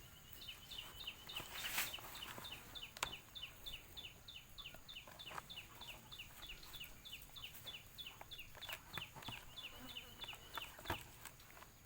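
An animal chirping: short high notes repeated about four times a second for about ten seconds, stopping about a second before the end, with a few faint knocks.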